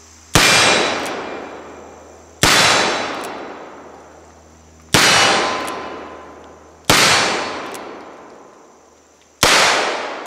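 Colt Single Action Army revolver fired five times, one shot every two seconds or so, each shot followed by a long echo that dies away.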